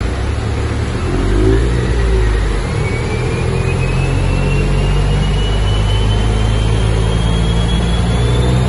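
Ford Fiesta ST Mk8's turbocharged 1.5-litre three-cylinder engine, fitted with an X37 hybrid turbo, running under load on a rolling-road dyno. A high whine climbs steadily in pitch through the run as speed builds.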